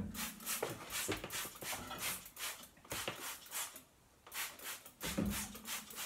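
Hand trigger spray bottle pumped again and again, a quick hiss of spray about three to four times a second, with a short pause about four seconds in. The cleaner is being sprayed onto a metal engine part.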